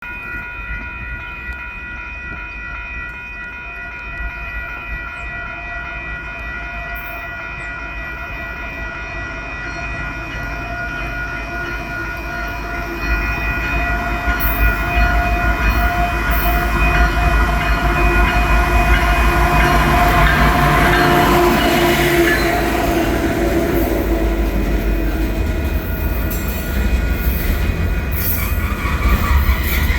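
Freight train drawing near and passing, its diesel locomotive rumble growing steadily louder and jumping up about 13 seconds in. Rail wheel noise follows, with sharp clicks and squeal near the end.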